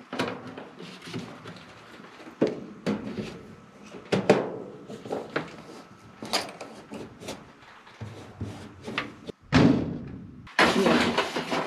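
Hands working a plastic bypass humidifier housing and its fittings: a series of irregular clicks, knocks and thuds, the loudest about nine and a half seconds in, then a second or so of dense rustling noise near the end.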